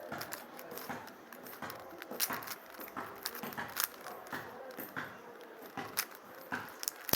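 Plastic Rubik's cube being turned one-handed: irregular clicking and clacking of the layers, a few turns a second.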